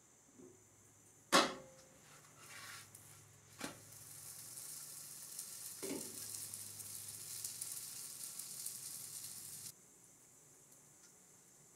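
Naan sizzling in a hot skillet, a steady hiss that stops suddenly near the end. Near the start a sharp metallic clink of the glass pan lid being handled, then a lighter knock, and about halfway a dull slap as the bread is flipped.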